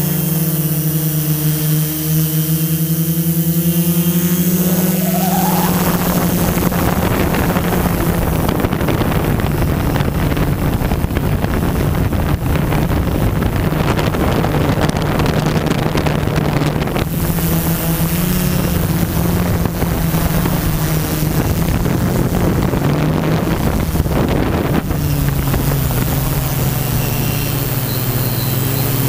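Multirotor drone's motors and propellers humming steadily, heard from its on-board camera. A rush of wind noise comes in about five seconds in and eases near the end, when the hum drops in pitch.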